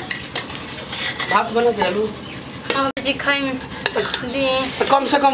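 Steel ladle scraping and clinking against a steel plate of cooked rice as it is stirred and scooped, with repeated sharp metal clinks.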